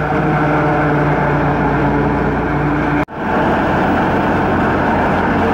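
Tractor engine running steadily under load, driving a PTO-powered corn silage chopper while corn stalks are fed in. The sound drops out for an instant about three seconds in.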